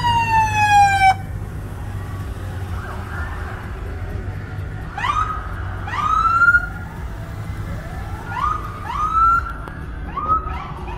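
Fire engine's electronic siren: a falling wail that cuts off abruptly about a second in, then short rising whoops in quick pairs from about five seconds on. A steady low hum of the car's engine and road noise runs underneath.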